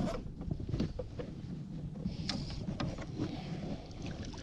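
Wind buffeting the microphone, with scattered light clicks and knocks from handling a rod and baitcasting reel against a plastic kayak while a hooked gar is worked free at the side of the boat.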